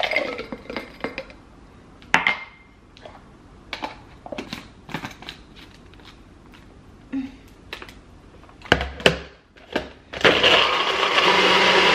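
Frozen berries clattering into a plastic blender cup, then scattered clicks and knocks as the blade lid goes on and the cup is set on the base. About ten seconds in, a personal bullet-style blender starts and runs loudly and steadily, blending frozen berries into a smoothie.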